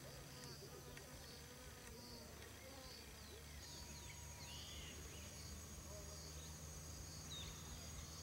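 Faint insects chirping: a short high note repeating at an even pace, about one and a half times a second. A steady high insect whine joins about halfway through.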